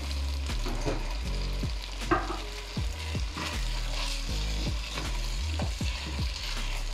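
Diced carrots, potatoes and peas sizzling with oil-fried rice in a pot as a slotted spoon stirs them, with repeated scrapes and knocks of the spoon against the pot, a few a second.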